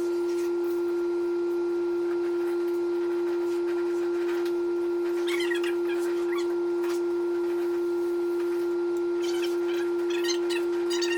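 A steady, unchanging single-pitched hum, with faint rustling and light clicks around the middle and again near the end.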